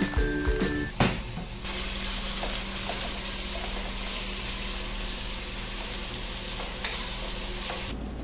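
Chicken frying in a pot, sizzling steadily as it is stirred with a wooden spoon.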